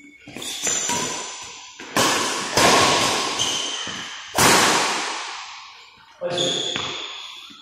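A badminton rally: rackets smacking a shuttlecock about five times, each sharp hit ringing out in a reverberant hall, with brief high squeaks from shoes on the court mat.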